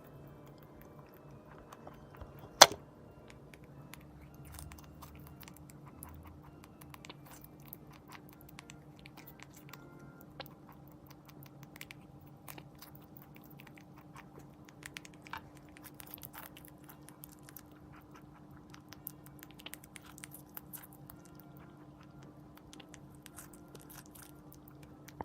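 Netherland Dwarf rabbit munching fruit: quick, irregular, crunchy chewing clicks, with one much louder sharp click about two and a half seconds in. A faint steady hum lies underneath.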